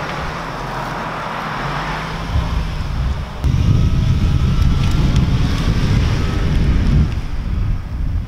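A Ford Transit van driving past and pulling away up the road. About three and a half seconds in, loud wind buffeting on the microphone comes in and takes over as the loudest sound.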